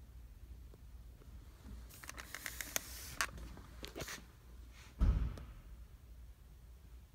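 Faint handling noise: rustling and small scraping clicks for about two seconds, then a single dull bump about five seconds in.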